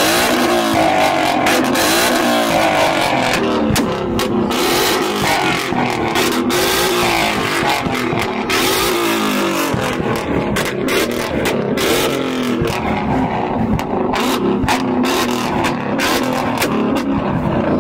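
Ford Mustang revved hard and repeatedly while stationary, the engine note climbing and falling over and over, with sharp exhaust pops and cracks as flames shoot from the tailpipes.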